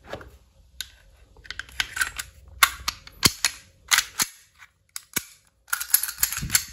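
Sharp clicks and clacks of a WE Glock 19 gas blowback airsoft pistol being reassembled by hand: the slide fitted back onto the frame and worked back and forth, some clicks in quick clusters.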